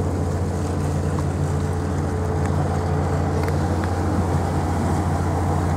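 Ferry's engines and machinery running with a steady low drone, heard from the open deck, with the hiss of water and wind over it.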